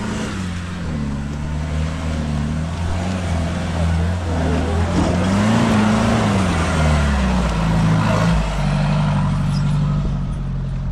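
First-generation Mahindra Thar's diesel engine revving as it climbs a rutted dirt track, its pitch rising and falling with the throttle. It is loudest as it passes close, about six to eight seconds in.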